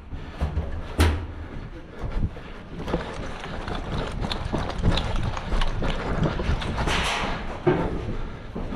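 Irregular light knocks and rustling from a player moving with gear, over low wind rumble on the microphone. A sharp crack comes about a second in, and a short rush of hiss comes near the end.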